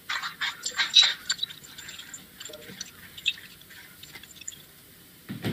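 Smart 3x3 speedcube being scrambled by hand: layers turned in quick runs of sharp plastic clicks, thick for the first second and a half, then sparser. A duller thump comes near the end.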